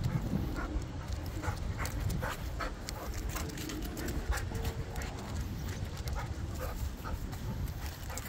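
Dog panting with its mouth open while trotting on a leash, in short quick breaths over a steady low rumble.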